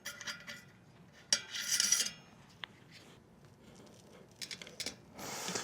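Small clinks and a short scraping rub, about a second and a half in, as bicycle wheel parts and tools are handled.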